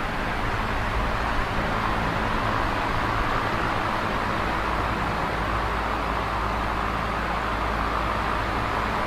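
Large box fan running steadily: an even rush of air, with a low motor hum underneath.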